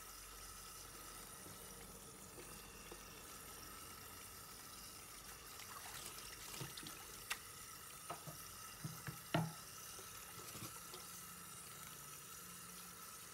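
Tap water running into a stainless steel sink and a bowl while whole fish are rinsed by hand. Past the halfway point a handful of short knocks and clatters, the loudest about two-thirds of the way in.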